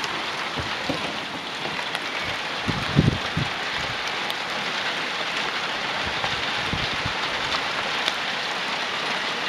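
Hailstones falling thickly onto grass and paving slabs, a steady dense pattering of countless small impacts, with a low thump about three seconds in.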